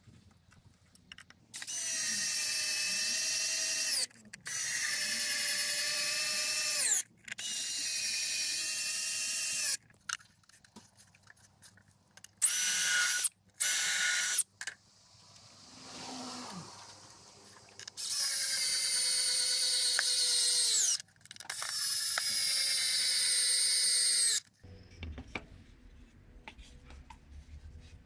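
Electric drill running in repeated runs of two to three seconds, seven in all, two of them short. Each run ends with the motor's pitch sliding down as the trigger is released. A softer rushing noise comes in the middle.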